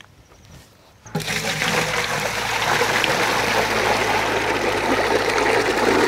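A stream of water pouring into an empty aluminium pot and filling it, starting suddenly about a second in.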